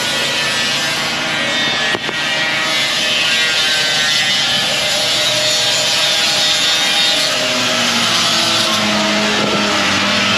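Hand-held power sander running against a fiberglass boat part: a loud, steady whine over hiss. A low steady hum joins near the end.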